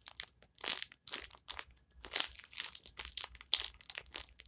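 Homemade fidget of fuzz wrapped in tape being squeezed and worked in the hand, crinkling: a run of irregular crackles and crunches.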